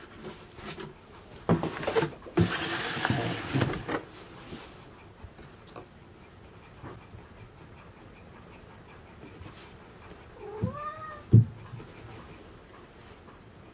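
A cardboard box rustles and knocks for a couple of seconds as a cat moves in and around it. Later a cat gives one short meow, then there is a single sharp thump, the loudest sound.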